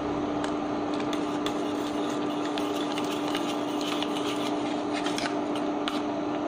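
Steady hum of an induction cooktop running under a pot, with a metal spoon scraping and clicking against the stainless steel pot as thick sauce simmering in it is stirred.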